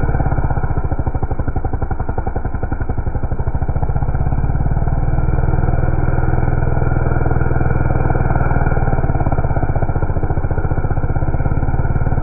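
McCulloch two-stroke chainsaw running at high revs while cutting through a log, a steady engine note that dips slightly a couple of seconds in.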